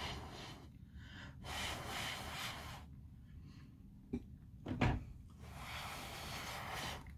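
Small knocks of nail supplies being handled on a table: two short knocks a little past the middle, the second louder, with spells of soft breathy hiss before and after.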